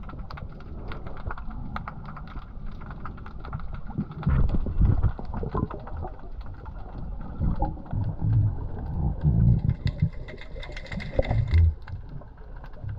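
Underwater water noise picked up by a submerged camera: a steady crackle of sharp clicks, joined about four seconds in by irregular low, heavy surges of rushing water.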